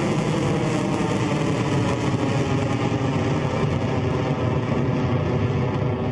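Electron rocket's first-stage Rutherford engines firing during ascent, a steady, dense rumble with no breaks.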